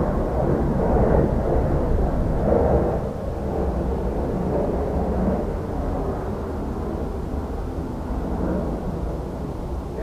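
Low rumble of an airplane passing overhead, loudest in the first three seconds and then slowly fading.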